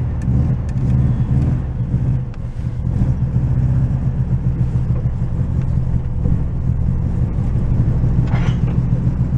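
VW Beetle's air-cooled flat-four engine running shortly after a cold start, heard from inside the cabin while the car is driven slowly; a steady low rumble that wavers a little with the throttle.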